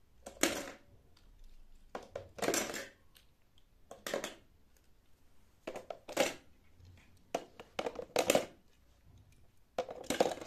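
Small toy cars dropped one at a time through the lid of a plastic shape-sorter bucket, clattering against the plastic and the other cars inside: about six short clatters, roughly one every two seconds.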